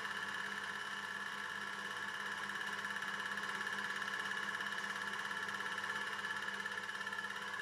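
Projector running: a steady fan hiss with a constant high whine and a low hum.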